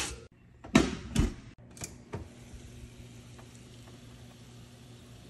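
A couple of short clatters about a second in, then a steady low oven hum with the faint hiss of chicken drumsticks sizzling on a sheet pan.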